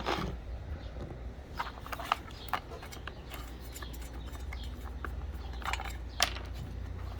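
A new circular saw blade being unwrapped from its retail packaging: scattered crinkles, rustles and small clicks of the packaging being handled and pulled open, over a steady low hum.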